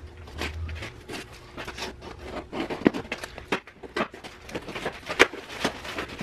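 A cardboard shipping box being opened by hand: irregular scrapes, taps and rustles as the packing tape is cut with a small cutter and the cardboard flaps are pulled open.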